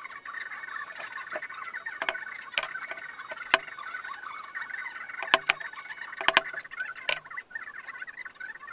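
A hammer taps on wooden blocks on a workbench: about eight sharp knocks at uneven spacing, several in quick pairs around the middle and one heavier thud near the end. A steady high chirping runs underneath throughout.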